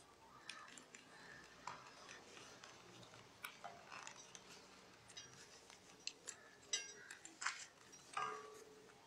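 Faint rustling and light clicking of rolled paper tubes being woven through the paper-tube spokes of a pen stand and knocking against the tabletop, with a few sharper clicks near the end.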